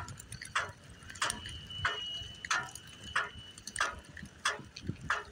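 Metal collar tags on a running dog clinking in an even rhythm, about three clinks every two seconds, one per stride, over a faint steady high whine from the electric bike's motor.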